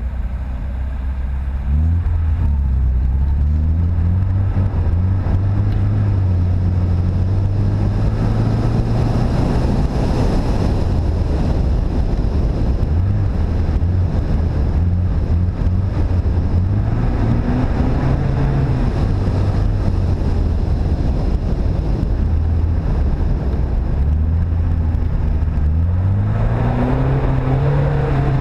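Car engine heard from the bonnet, revving up and dropping back several times as the car accelerates along a snow-covered track, over steady tyre and wind noise.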